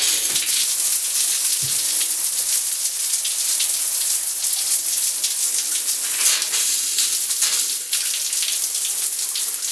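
Water spraying steadily from a showerhead and splashing onto a concrete shower floor, an even hiss throughout.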